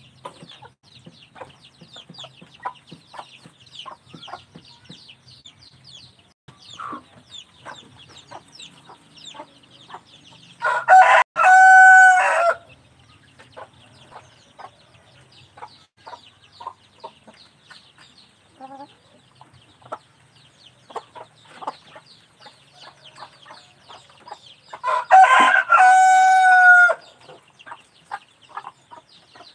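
A rooster crows twice, a loud drawn-out call of about two seconds each time, once about a third of the way in and again near the end. Between the crows come irregular quick taps of a beak pecking feed from a bowl.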